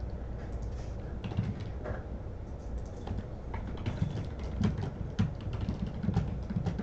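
Typing on a computer keyboard: quick, irregular key clicks, a few of them louder about four to five seconds in.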